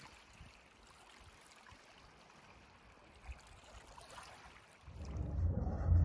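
Faint, gentle trickle of shallow water over sand. About five seconds in, a low rumble starts abruptly and becomes much louder.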